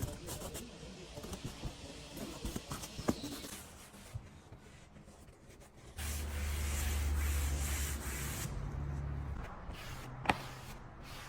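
Interior cleaning work: rubbing and scrubbing with small clicks. About halfway through, a steady machine-like hum with hiss starts suddenly and runs for about three seconds. A single sharp click comes near the end.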